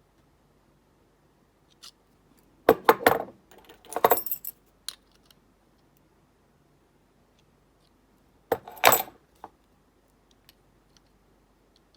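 Metal clinking and rattling of brass-and-steel padlocks and keys being handled, in two short bursts of clatter: one about three seconds in and another near nine seconds.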